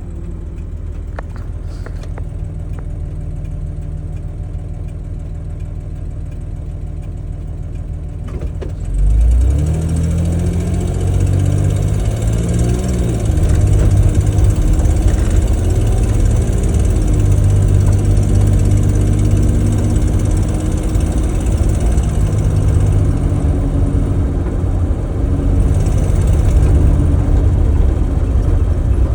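Mercedes-Benz 280GE's straight-six petrol engine running with the ticking noise its owner is recording. About nine seconds in it gets louder, and its pitch rises and falls briefly as if revved.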